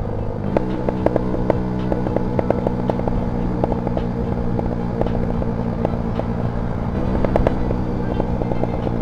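Honda Sonic 150R's single-cylinder engine running under way, its exhaust crackling with frequent, irregular pops. The popping comes from the O2 sensor being unplugged.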